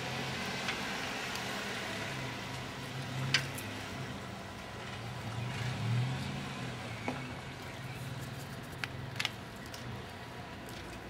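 Low rumble of road traffic that swells about halfway through, with a few sharp clicks and taps.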